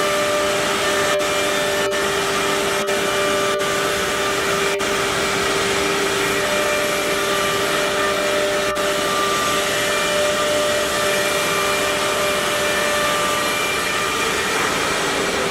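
Spindle of a CNC router running as it machines wood, a steady whine of several held tones over a constant rush of machine noise.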